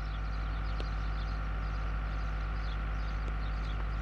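A steady low mechanical hum, like a motor or generator running, with faint high chirps over it.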